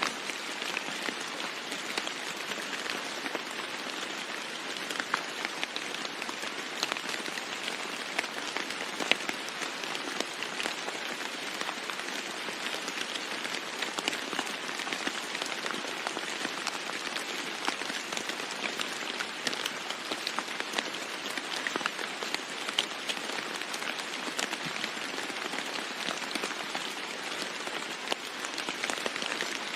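Steady, intense rain on a roof: a dense even hiss of falling water with many sharp individual drop ticks. No thunder.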